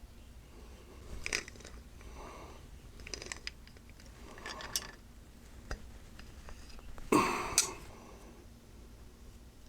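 Small metal pipe fittings and tools being handled while assembling an air compressor's outlet manifold: scattered clicks and clinks with short rustling scrapes, the loudest a harsh scrape about seven seconds in.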